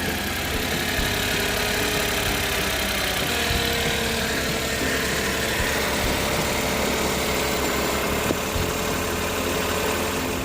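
Suzuki Every DA64W's 660 cc three-cylinder engine idling steadily, its belt tensioner bearing newly replaced.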